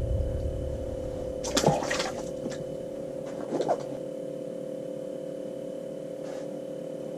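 Water splashing briefly twice in an ice-fishing hole, about a second and a half and three and a half seconds in, over a steady hum.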